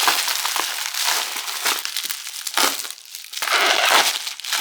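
Packaging crinkling and rustling in irregular bursts as a parcel is torn open by hand to get at a replacement phone frame.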